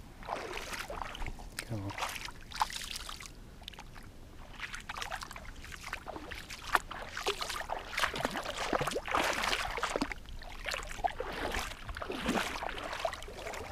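Wading through shallow water over sand: feet sloshing and splashing with each stride, in uneven strokes that grow busier and louder about halfway through.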